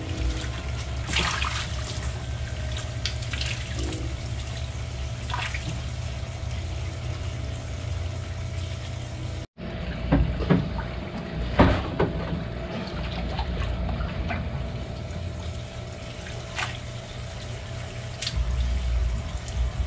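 Water splashing and sloshing as a dip net is swept through a bait tank, with several sharper splashes as the net is pulled along, the loudest a little past halfway. A steady hum runs underneath, and the sound drops out for a moment about halfway through.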